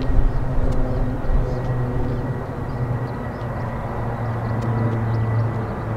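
Boeing 737-800 airliner's CFM56 turbofan engines running as the jet rolls along the runway toward a takeoff: a steady rumble with a thin high whine.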